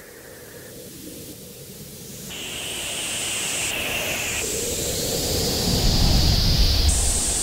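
Cinematic whoosh-and-rumble riser for a zoom effect: a hissing, wind-like swell that grows steadily louder, with high airy tones that step in and out, and a deep rumble building up in the last two seconds.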